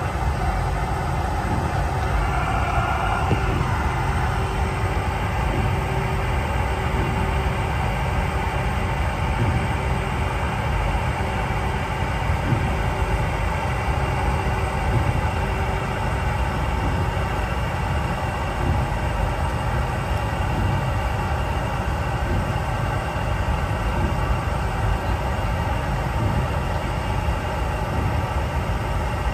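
Steady low rumble and hiss aboard a Boeing 717-200 airliner.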